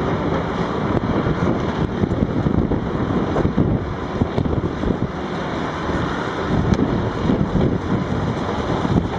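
Large Volvo wheel loader's diesel engine running as it backs away and turns, mixed with other heavy diesel machinery in a steady din. Wind buffets the microphone.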